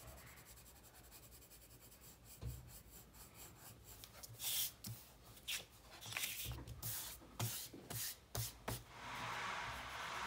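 Colored pencil scratching on paper in short strokes as a drawing is shaded in. The strokes are faint at first and grow louder and quicker from about four seconds in. A steady hiss comes in near the end.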